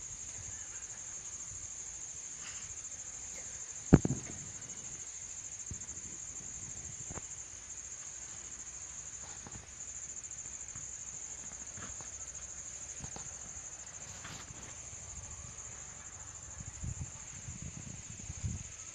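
Insects chirring in a steady high-pitched drone, with a single sharp knock about four seconds in and a few low bumps near the end.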